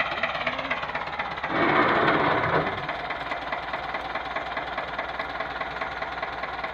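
Farm tractor's diesel engine running steadily with a rapid clatter as it pulls a loaded trailer down a slope, with a louder, rougher surge lasting about a second, starting about a second and a half in.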